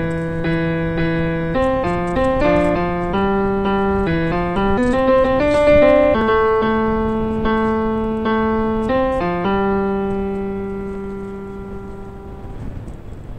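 Piano notes from the Musicca online virtual piano: a slow tune of single notes and pairs, the last note held and slowly fading, then cut off abruptly.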